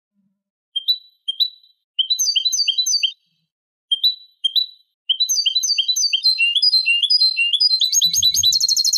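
European goldfinch singing a tutor song: after a short silence, a few separate rising notes and short runs of repeated twittering notes, then from about five seconds in an unbroken stream of quick twittering that speeds up into a fast trill near the end.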